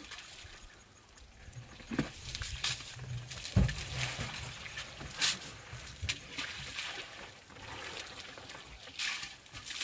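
African elephant flinging and slapping wet mud with its trunk during a mud bath: irregular wet splats and splashes, with heavier thuds about 2 and 3.5 seconds in.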